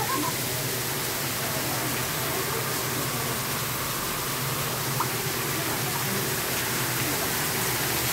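Indoor artificial waterfall splashing into a rocky pool: a steady rushing hiss of falling water, slightly louder near the end.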